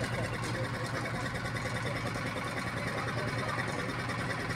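A boat engine idling steadily, with an even, rapid beat.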